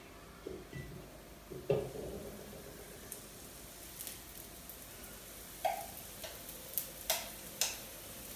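Ladle clicking and knocking lightly against a steel mixing bowl and the waffle iron as batter is scooped and spooned onto the plate: a few scattered taps, the loudest a little over halfway through.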